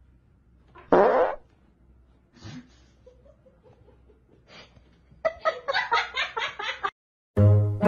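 A person lets out a loud, short fart about a second in, with a fainter one about a second and a half later. Near the end comes a run of laughter in quick bursts.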